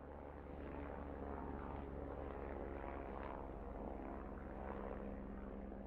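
Helicopter running, its engine and rotors a steady drone that grows a little louder in the first second.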